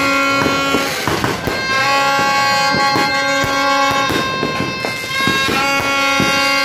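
A horn sounding in long, steady blasts at one unchanging pitch: one ends about a second in, another runs from about two to five seconds, and a third starts near the end. New Year's fireworks pop and crackle throughout.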